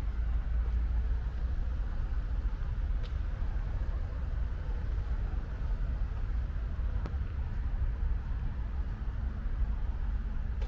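Light rain falling, heard as a steady hiss over a low, constant rumble of distant traffic, with a couple of faint ticks.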